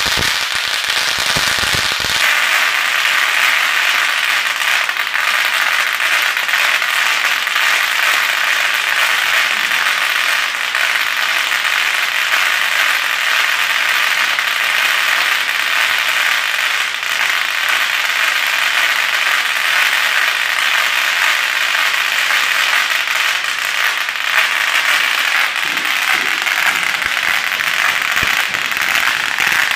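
Four-foot-wide bubble wrap being crushed between the rollers of a slip roll, its bubbles popping in a dense, continuous crackle. A low rumble sits under the popping for the first two seconds or so.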